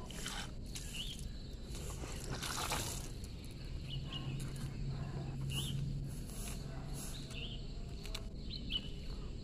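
Footsteps on a paved street, with short high bird chirps every second or so over a low steady hum.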